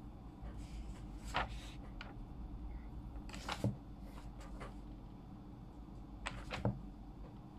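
Sheets of paper being handled on a desk: soft rustling with a few light knocks, one about a second and a half in, one midway and two close together near the end, over a low steady hum.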